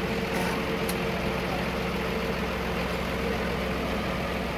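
New Holland T7 tractor's diesel engine idling steadily.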